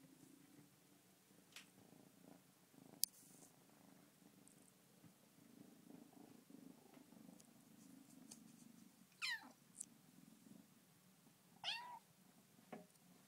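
Bengal kitten giving two short, high-pitched meows, each falling in pitch, a couple of seconds apart in the second half. A single sharp click comes about three seconds in.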